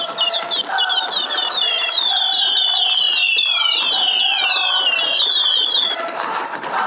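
Many firework whistles going off at once: short, high falling whistles overlapping in a dense swarm that stops about six seconds in, followed by a few sharp crackles.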